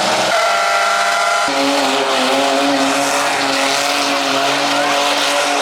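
Combine harvester engines running loud in a steady drone, with a higher tone joining in for about the first second and a half.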